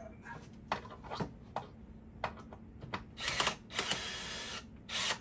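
DeWalt cordless drill driving a bolt into the wooden loom frame in three short bursts, starting about three seconds in, after a few light clicks and knocks of handling.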